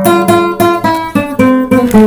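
Acoustic guitar played with a steady run of picked notes and chords, about four a second.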